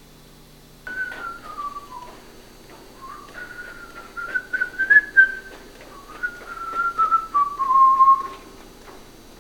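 A person whistling a casual tune that begins about a second in, the melody dipping and rising, with soft footsteps on a hard hallway floor.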